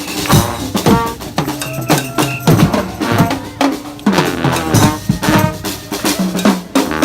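Street brass band playing, with the drums loudest: bass drum and snare beating a busy rhythm under short horn notes.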